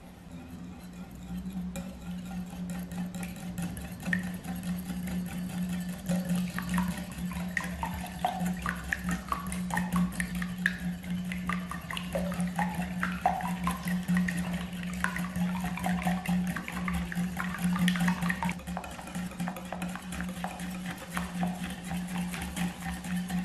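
Wire whisk beating eggs and sugar in a glass bowl: fast, continuous ticking and scraping of the wires against the glass, over a steady low hum.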